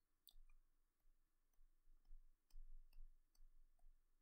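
Near silence with faint, scattered clicks of a computer input device being worked, about two a second, and soft low thumps.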